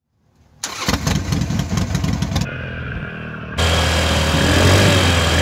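Motorcycle engine sounds in quick cuts: a rapid, rough pulsing from about half a second in, a quieter idle from about two and a half seconds, then a louder steady engine note from about three and a half seconds.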